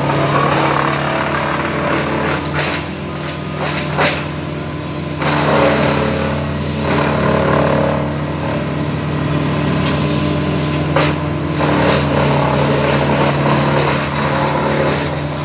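Work-machine engine running steadily, with a few sharp knocks: one near 3 s, one near 4 s and one about 11 s in.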